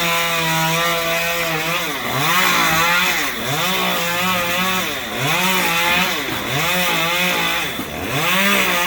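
Two-stroke chainsaw running at high revs and cutting through palm fronds, its pitch sagging as it bites and climbing back, over and over.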